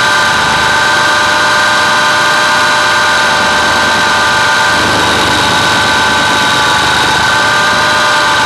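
Hurricane 550 radio-controlled helicopter in flight, heard close up from its onboard camera: a loud, steady high-pitched whine of motor and rotor over a rushing noise. The pitch shifts slightly about five seconds in.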